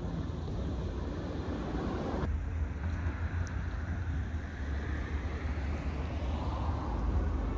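Outdoor street ambience: a steady hiss of distant road traffic over a low wind rumble on the microphone. The background shifts abruptly about two seconds in, and a vehicle swells and fades in the middle.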